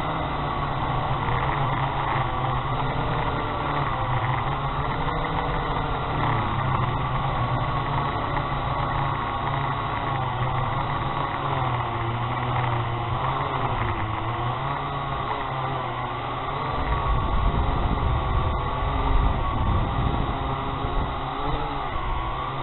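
Syma X8HG quadcopter's motors and propellers whirring in flight, the pitch wavering up and down as the motor speeds change. From about three-quarters of the way in, gusty wind adds a low rumble on the microphone.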